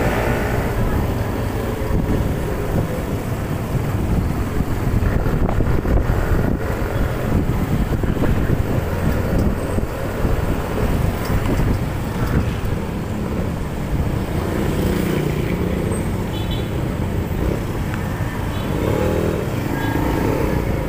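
A motorcycle in city traffic, heard from the rider's seat: a steady rumble from the engine and the road, with other motorcycles and vehicles around.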